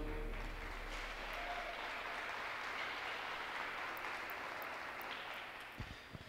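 Audience applauding as a figure skating program ends, the clapping slowly dying away.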